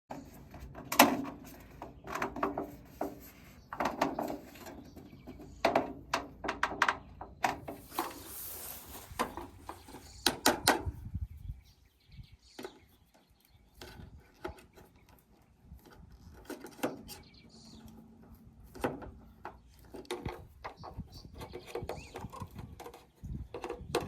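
Irregular knocks, clicks and clatter of rain gutter parts being handled and fitted together, busiest in the first half, with a short hiss about eight seconds in.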